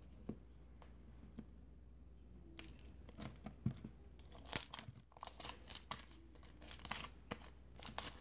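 Glossy glitter slime mixed with shaving cream being stretched and squished by hand, crackling and popping in irregular bursts. Nearly quiet at first with a few faint clicks, the crackling starts about two and a half seconds in.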